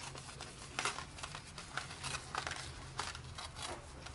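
Sheet of paper rustling and crinkling as it is handled, in irregular short crackles.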